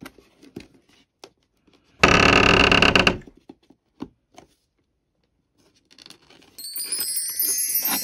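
Packaging being opened: light clicks and taps, then a loud tearing noise about two seconds in that lasts about a second. From about six and a half seconds in comes a bright jingling, ringing sound.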